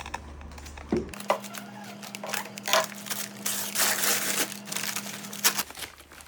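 Packaging of a new school bag being handled and pulled open, crinkling and rustling in irregular bursts for a few seconds.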